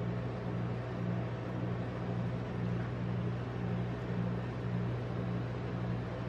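Steady low hum of a rolled-ice-cream machine's refrigerated cold plate running, with a slight regular throb about twice a second.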